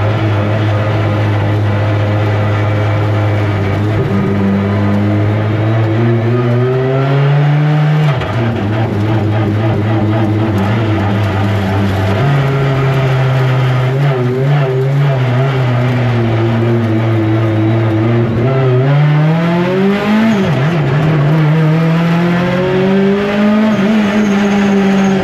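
Deep Orange 9 race car's engine being driven, its pitch climbing under acceleration, dropping sharply about eight seconds in, then stepping up and rising and falling again as the revs change.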